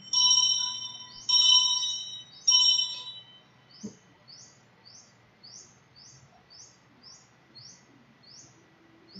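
Altar bells rung three times, about a second apart, each ring dying away, marking the elevation of the chalice at the consecration. Afterwards a bird chirps faintly and repeatedly, about twice a second.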